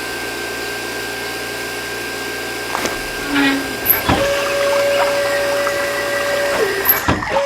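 Small electric motors whining steadily in a homemade mini drilling and water-pump model, with a low hum under them. About four seconds in a second, lower whine starts up and briefly sags in pitch near the end.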